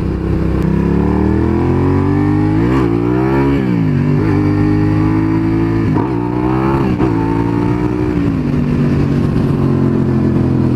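Suzuki SV650S motorcycle's 645 cc V-twin engine running under way, its revs rising and dropping several times as the bike accelerates and shifts.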